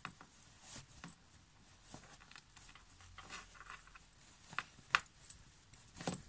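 Cotton fabric being handled and turned right side out by hand: faint, scattered rustles and soft swishes, a few sharper ones near the end.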